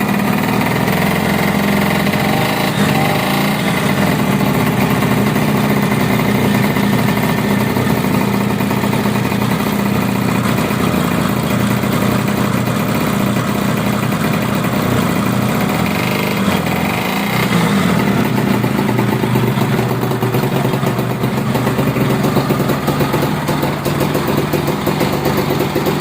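Kreidler R50 motorcycle's small two-stroke engine running steadily on a test run. Its pitch shifts briefly about two-thirds of the way through, and it runs a little louder after that.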